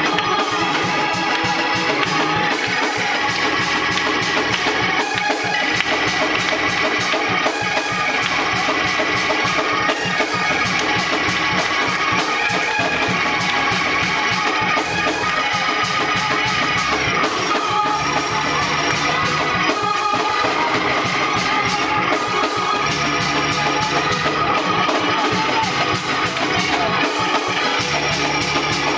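Live gospel praise-break music played loud: organ chords held over a driving drum beat, the bass notes shifting every couple of seconds.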